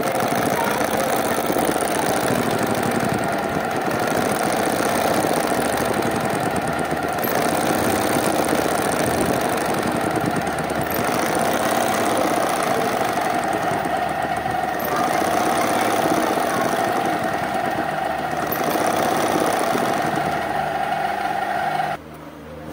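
Sewing machine running steadily at speed, the needle stitching rapidly along a kurta collar band with a constant motor whine. It stops abruptly near the end.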